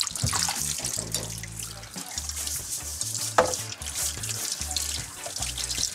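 Kitchen tap running water as quinoa is rinsed under it.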